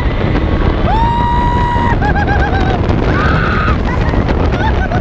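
Heavy wind buffeting the microphone on a moving roller coaster, with riders screaming over it: one long held scream about a second in, then shorter wavering yells.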